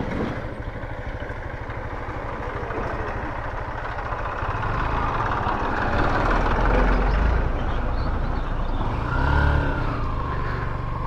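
Motorcycle running steadily along a road while a heavier, deeper engine rumble, tractors passing, builds up about halfway through and fades again.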